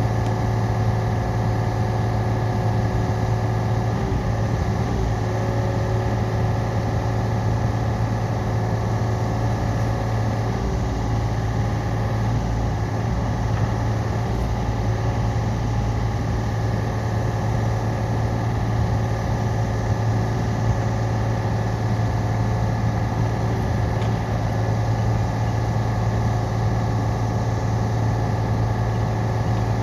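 Yanmar ViO35-6A mini excavator's diesel engine running steadily at an even pitch while the machine digs.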